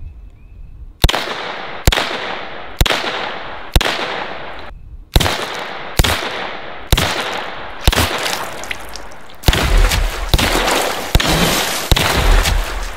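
UZI Model B 9mm short-barrelled rifle firing single semi-automatic shots about one a second, each followed by a short echo, with a quicker run of shots near the end.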